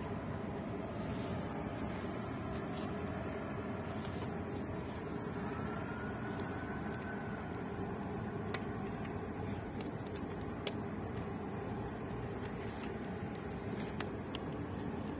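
Steady low rumble of a harbour as a large oil/chemical tanker under way heads out to sea. A faint whistle-like tone rises and falls about six seconds in, and there are a few light clicks.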